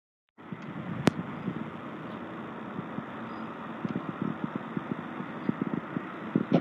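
Steady outdoor background noise with scattered low thumps and a sharp click about a second in, starting abruptly after a moment of silence.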